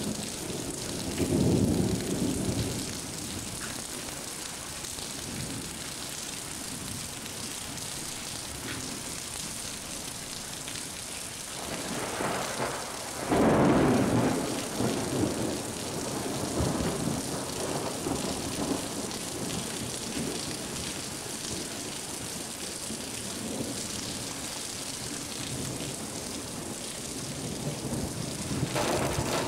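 Thunderstorm: steady rain hissing, with rolls of thunder. A rumble comes about a second in, the loudest peal builds and breaks around halfway through, and a lighter rumble comes near the end.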